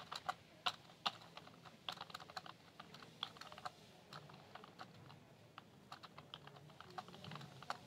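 Typing on a computer keyboard: many short key clicks in quick, irregular runs.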